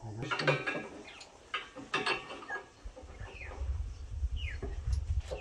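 A bird gives a few short falling calls among scattered clicks and knocks, with a low rumble in the second half.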